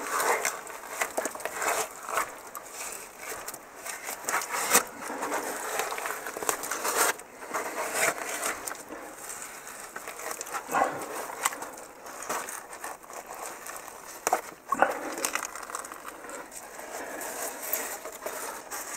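Gloved hands digging and pulling through wet, sticky clay mud: irregular squelches, crackles and scrapes, with a few sharper knocks.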